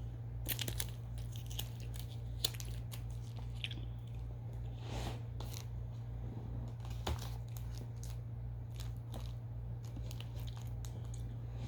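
Person chewing a strawberry Push Pop gummy roll close to the microphone: scattered short wet mouth clicks and smacks, over a steady low electrical hum.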